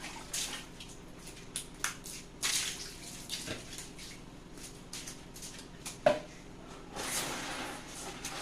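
Water splashing and dripping with scattered knocks and brushy scrapes while a kitchen is washed down; a steadier rush of water noise sets in about seven seconds in.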